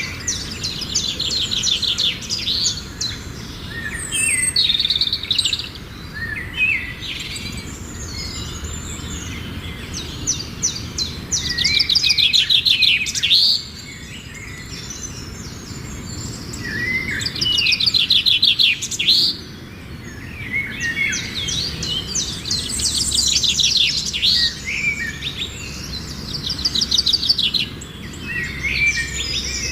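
Birdsong: repeated phrases of fast trills and chirps, the loudest about twelve and eighteen seconds in, over a low steady background rumble.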